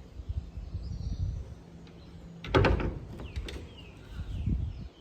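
A door thumps open about halfway through, followed by a few light clicks. Birds chirp faintly in the background.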